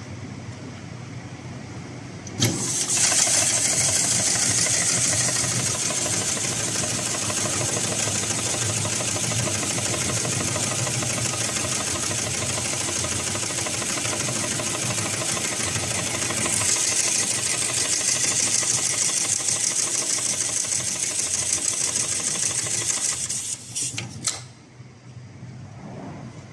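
Computer-controlled pattern sewing machine starting up about two seconds in and stitching steadily at speed through rope and a leather tag on a leash loop. It stops near the end with a few sharp clicks.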